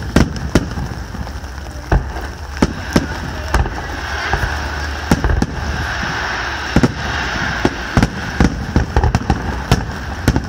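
Fireworks display: shells bursting in a rapid, irregular series of bangs, with a denser crackling hiss in the middle, from about four to eight seconds in.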